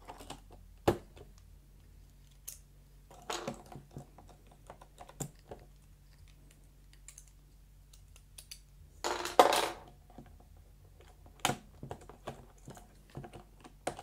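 Plastic clicks and clatter of Topre keycaps being pulled off the keyboard with a wire keycap puller and handled: scattered sharp clicks, with the loudest clatter about nine seconds in.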